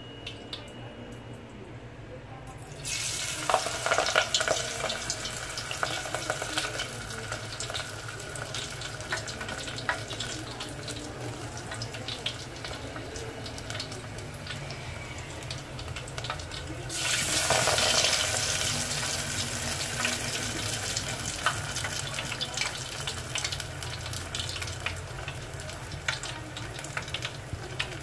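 Battered kangkong (water spinach) leaves deep-frying in hot oil: a dense sizzling hiss with crackles. It starts suddenly about three seconds in as leaves go into the oil, and swells again, louder, around seventeen seconds in.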